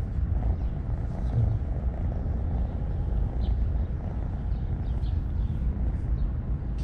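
Young kitten purring close to the microphone: a steady low rumble, with faint short high chirps in the background.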